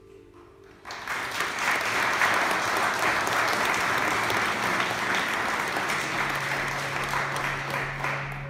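Audience applauding: dense clapping starts suddenly about a second in and thins out near the end. A low sustained musical tone comes in underneath during the last couple of seconds.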